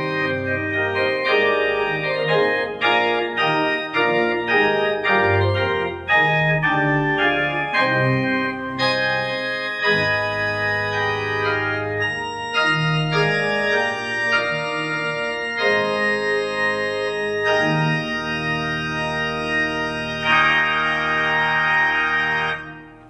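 Church organ played on two manuals: a flowing piece of moving chords over sustained bass notes. It closes on a long held final chord, released just before the end.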